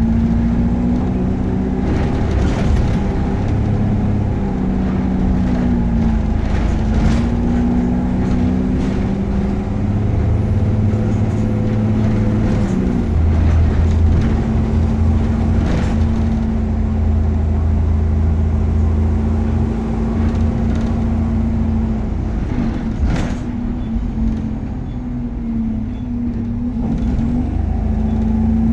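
Optare Versa single-deck bus engine running on the move, its note rising and falling as it pulls through the gears, with occasional knocks and rattles.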